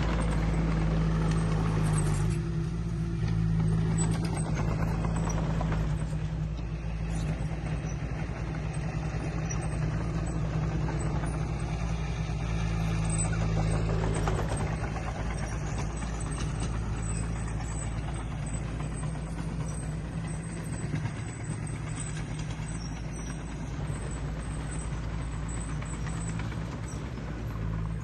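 Diesel engine of heavy earthmoving machinery running steadily, a deep continuous hum that gets gradually a little quieter over the second half.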